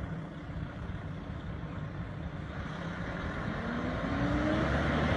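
Road train truck's diesel engine and tyres, growing steadily louder as it approaches, with the engine note rising in pitch in the last couple of seconds as it pulls harder.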